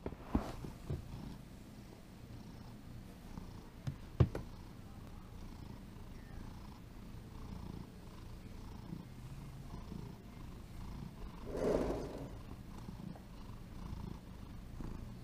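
Domestic cat purring steadily while being stroked, a low continuous rumble. A few sharp knocks sound in the first four seconds, and a short rubbing noise swells about twelve seconds in.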